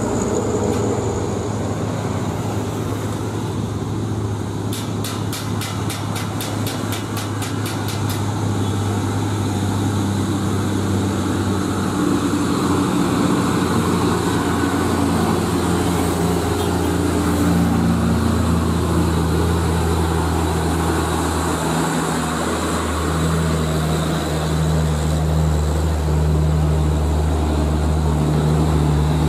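Diesel engine of a loaded Mitsubishi Fuso Fighter FM 517 truck-and-trailer running hard as it climbs a grade, its low drone growing louder as it draws near and passes close. About five seconds in, a rapid ticking, about four ticks a second, lasts for about three seconds.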